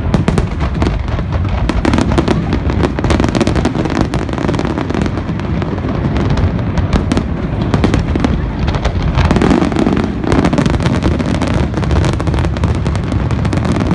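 Aerial fireworks bursting in a rapid, unbroken barrage of bangs and crackles over a heavy low rumble.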